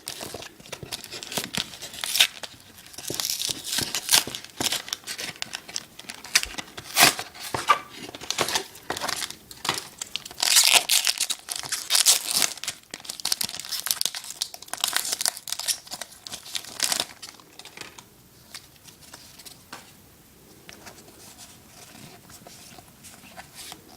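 Foil wrapper of a Pokémon trading card booster pack being torn open and crinkled, with bursts of sharp crackling and a few louder rips, easing to quieter handling of the wrapper and cards after about 17 seconds.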